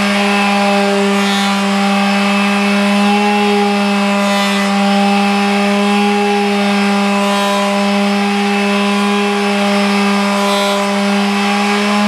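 DeWalt quarter-sheet finishing sander running at a steady pitch as it is worked over a walnut and maple board with 400-grit paper.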